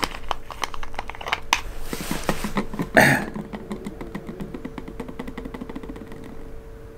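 Plastic Coca-Cola bottle being handled and its cap screwed back on, with sharp clicks and crackles of the plastic. About three seconds in there is a louder knock as the bottle is set down on the table, followed by a fading run of fine ticks.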